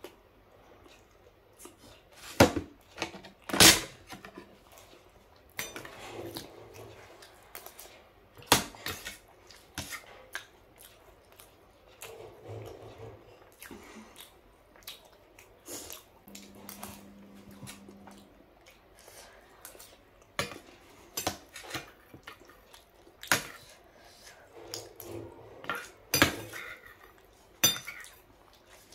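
Metal spoon clinking against a stainless steel bowl while the last of the sambar and idli is scooped out, in sharp, separate clinks scattered through, the loudest two coming about two and a half and four seconds in.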